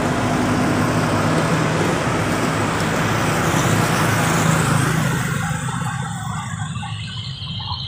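Road traffic noise from passing motorcycles and cars, over a steady low engine hum. It eases off somewhat after about five seconds.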